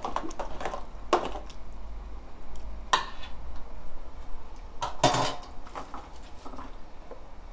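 A metal spoon stirring and scraping in a stainless steel mixing bowl, with a few sharp clinks and knocks of kitchenware being handled about one, three and five seconds in.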